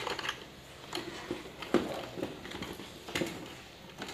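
A few light plastic clicks and knocks as a small RC truck is handled, turned upright and set down on its cardboard box, the sharpest right at the start and two more about a second and a half apart.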